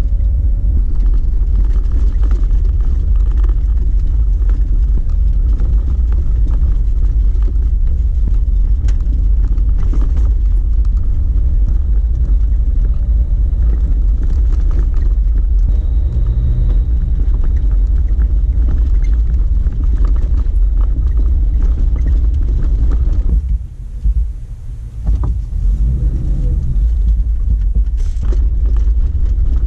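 Jeep Wrangler driving along a dirt forest road: a steady low rumble of engine and tyres, which dips briefly about three-quarters of the way through.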